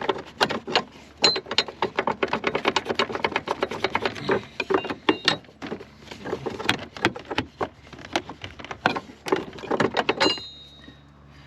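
Quick, irregular knocks and taps on the steel door hinge of a 1996 Ford F-250 as a worn hinge pin is worked out of it, several a second. They stop about ten seconds in with a brief metallic ring as the pin comes free.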